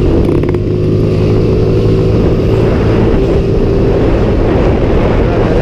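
Small motor scooter's engine running at a steady cruising speed, heard from the rider's seat with road and wind noise.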